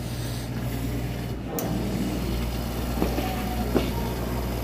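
A steady low mechanical hum, with a few sharp clicks near the end.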